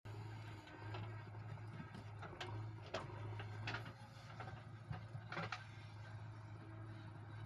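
Faint, steady low hum of diesel engines from a JCB 3DX backhoe loader and an HMT tractor at work. Several sharp clanks and knocks are heard through the middle as the backhoe's bucket works and loads soil into the tractor trolley.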